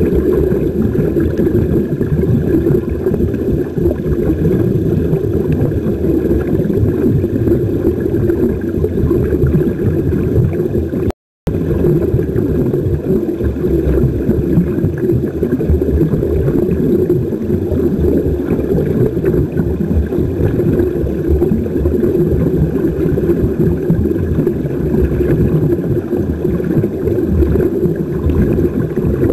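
Steady, muffled underwater rumble and bubbling, recorded by a camera under water, while air streams up in bubbles from the air-fed sea-walking helmets and their hoses. The sound cuts out for a moment about eleven seconds in.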